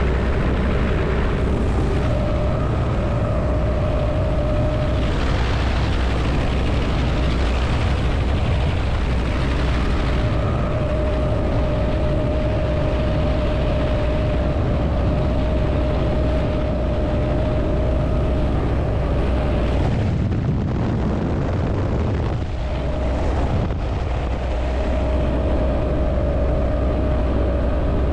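Helicopter in flight, heard from inside its open-door cabin: the rotor and turbine engine run with a steady, heavy roar and a whine that fades in and out, over rushing air from the open door.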